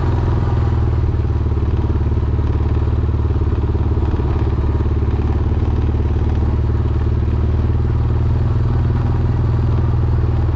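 Honda Foreman ATV's single-cylinder four-stroke engine running at a steady speed.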